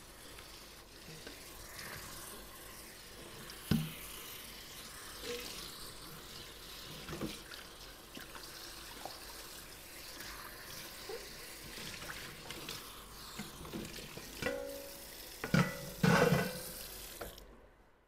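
Kitchen tap running into a sink while dishes are washed, with scattered clinks and knocks of dishes and pots. A burst of louder clattering with brief ringing comes near the end, just before the water shuts off.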